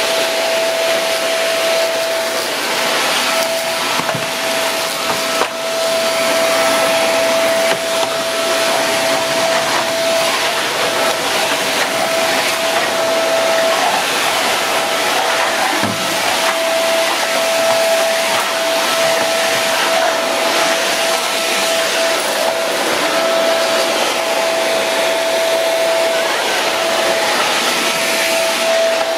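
Woly cyclone stick vacuum running steadily with a constant motor whine over the rush of suction as its floor head is pushed across a hard floor.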